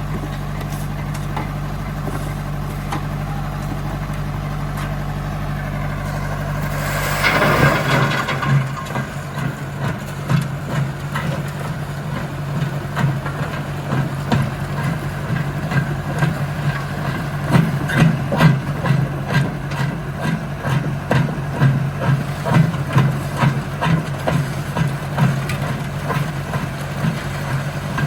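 Engine of a stone crusher plant running steadily. About seven seconds in there is a brief surge of noise, then continuous irregular knocking and clattering as stone is fed through and crushed.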